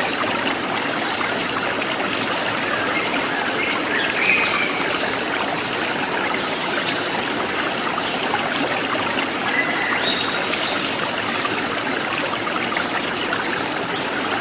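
Water running steadily, like a stream or trickle, with a few brief high chirps over it.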